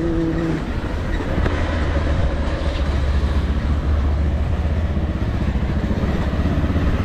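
Motorbike running under way: a steady low engine rumble mixed with wind and road noise on a helmet-mounted microphone, the rumble growing stronger about a second and a half in.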